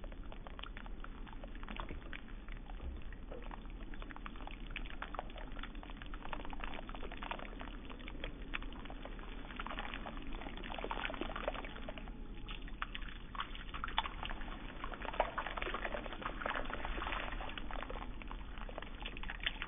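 Water pouring from a plastic watering can's spout onto loose potting soil in a plant pot, splashing steadily, with a short lull about twelve seconds in.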